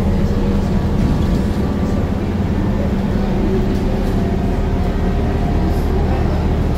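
Scania DC9 9.3-litre bus engine heard inside the cabin, pulling hard high in its rev range under acceleration, its pitch climbing slowly as the revs rise towards the red line.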